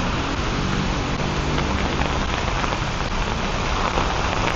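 Steady rain falling hard, pattering on an umbrella held overhead.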